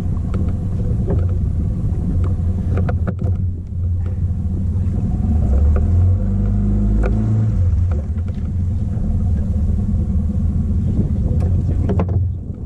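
Fishing boat's engine running steadily under way, a loud low rumble.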